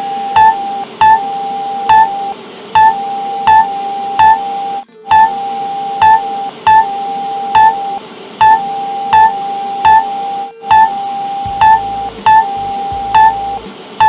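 Synthetic emergency-alert alarm: a steady electronic tone under loud, short beeps that repeat about every three-quarters of a second, with the tone cutting out briefly several times.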